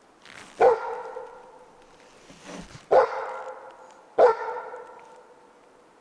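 Dutch Shepherd barking three times, single loud barks a second or two apart: alert barks at something the dog has noticed in the woods.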